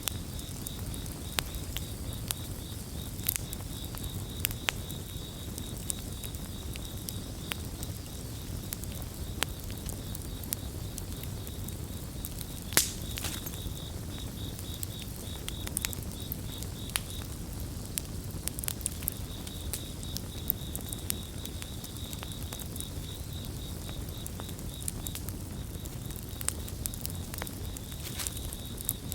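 Campfire burning with irregular crackles and pops over a low rumble, one sharp pop about 13 seconds in the loudest. A cricket chirps in a fast pulsing trill throughout, breaking off briefly twice.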